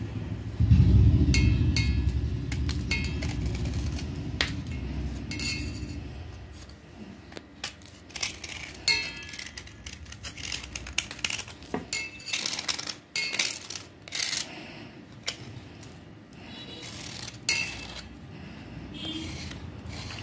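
Steel knife scraping the soaked outer layer off a chunk of white clay in short, repeated strokes. A low rumble fills the first few seconds before the separate scrapes take over.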